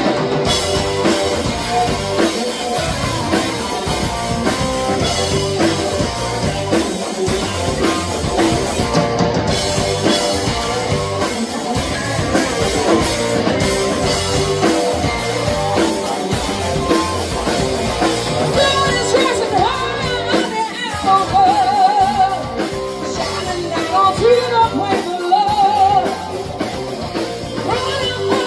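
A live rock band playing: drums, guitar and a singer. In the second half the singer holds long notes with vibrato.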